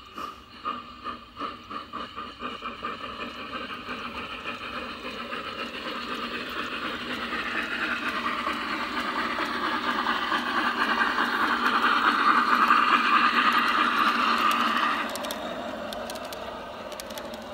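Two garden-railway model HF 110 C steam locomotives running double-headed with their train: a rhythmic ticking at first, then a steady mechanical rattle of wheels and drive that grows louder as the train comes close. It is loudest shortly before the train passes, then drops off suddenly.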